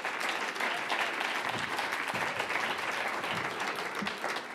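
Audience applauding, a steady even clapping.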